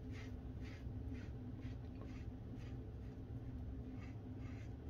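Merkur 34C double-edge safety razor with a Rockwell blade scraping through about a day and a half of stubble in short, faint rasping strokes, about two to three a second.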